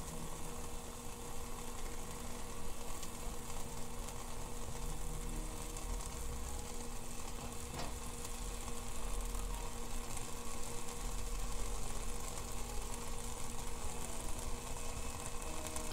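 Homemade tuna-can alcohol stove burning steadily, a soft even hiss from its ring of flame jets, with a faint steady hum underneath.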